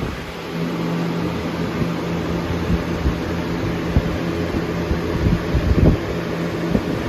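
GE 106620 box fan running on high: a steady rush of air with a motor hum, and a few low gusty thumps about four seconds in and around six seconds.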